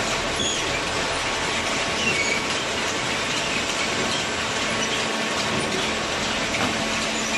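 Cardboard baler at work: a steady mechanical noise with brief high metallic squeaks scattered through it.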